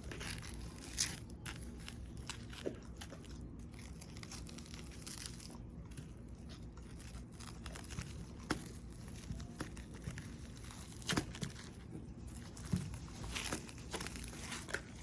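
Scattered crackling, crinkling and tearing sounds with occasional sharp clicks, from handling and pulling apart partly frozen raw chicken pieces.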